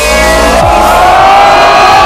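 A group of men yelling together in one long shout that rises in pitch over the first second and then holds, with electronic dance music underneath.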